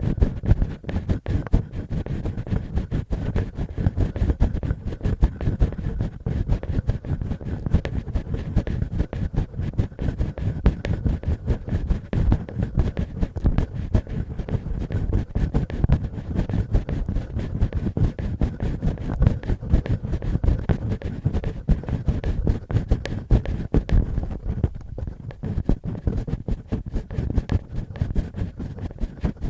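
Fingertips and fingernails scratching and rubbing close on a binaural microphone in ear-cleaning ASMR: a dense, continuous run of rapid scratches, heavy in the low end.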